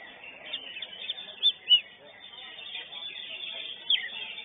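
Cucak hijau (greater green leafbird) singing a rapid run of varied chirps and whistled notes, with two loud sharp notes about a second and a half in and another near the end.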